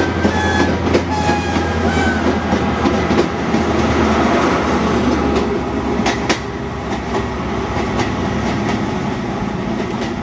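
High Speed Train coaches rolling past, wheels clicking over rail joints, then the rear Class 43 power car passes about six seconds in with a clank. The train's sound fades steadily as it moves away.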